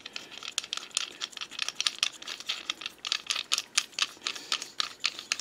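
Quick, irregular metallic clicking and rattling as a bolt is turned by hand through a new serpentine belt tensioner pulley and threaded into the tensioner.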